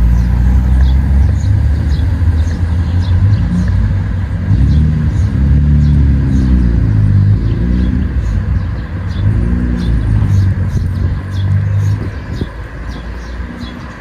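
Road traffic: the low rumble of passing motor vehicle engines, swelling and sliding in pitch twice, then fading near the end.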